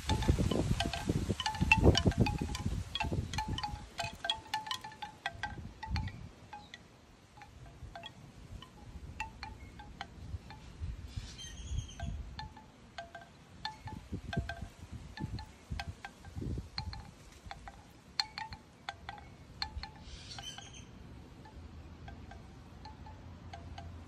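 Bamboo wind chime clacking in the wind, its hollow tubes knocking together with a short wooden ring. The knocks come thick and fast over wind buffeting the microphone for the first few seconds, then thin out to scattered clacks as the wind drops.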